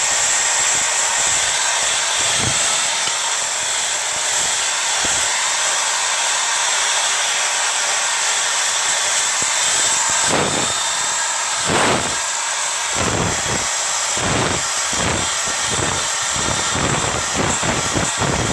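Power drill spinning a wire brush against a metal baking pan: a steady high whir and grind, with rougher irregular scraping and knocking from about halfway through as the brush is worked over the pan.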